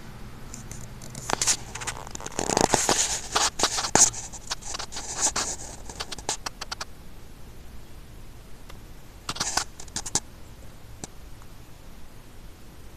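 Handling noise from a handheld phone: clusters of loud scratching and scraping rubs close to the microphone over the first several seconds, then one more short burst about nine to ten seconds in.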